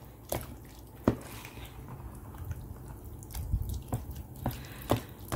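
Metal utensil beating ricotta cheese and raw eggs in a plastic bowl: wet squelching, with sharp clicks at irregular moments as the utensil knocks the bowl.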